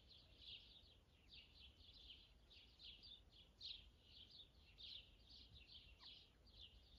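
Faint, continuous chirping of small birds, several short chirps a second, over a low background rumble.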